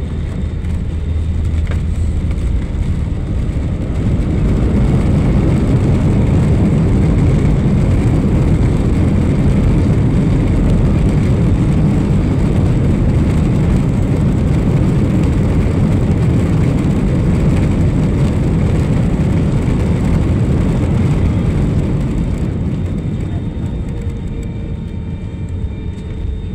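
Jet airliner's engines and rushing noise heard from inside the cabin during the landing rollout. The noise swells a few seconds in, holds steady, then eases off near the end as the plane slows on the runway.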